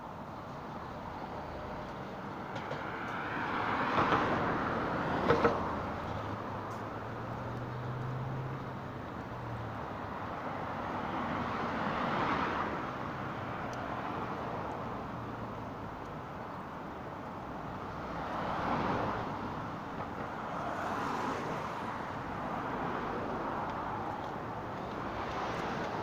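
City road traffic: cars passing one after another, each swelling and fading, with a low engine hum for a few seconds. A sharp knock comes about five seconds in.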